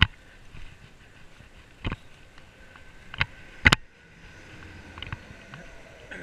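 Bicycle ridden along a bridge deck: steady tyre and riding noise broken by a handful of sharp knocks and rattles from the bike, the loudest about three and a half seconds in.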